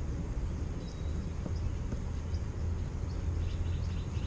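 Outdoor ambience: a steady low rumble with a few faint, short bird chirps now and then.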